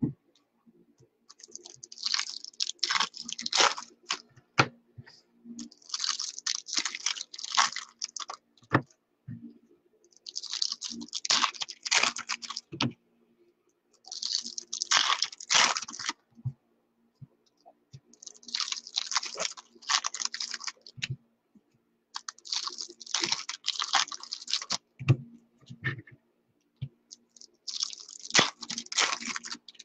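Foil wrappers of trading-card packs crinkling and tearing as packs are opened, in about seven crackly bursts of two to three seconds each, every four seconds or so.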